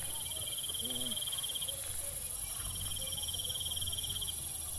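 Insects trilling in the grass: a steady, high, finely pulsing trill that drops out briefly about two seconds in and again near the end, over a constant high hiss.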